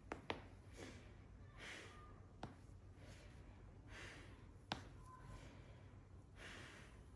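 Quiet chiropractic adjustment: a few sharp joint cracks, two in quick succession right at the start, one about two and a half seconds in and another a little before five seconds, with a person breathing in and out between them.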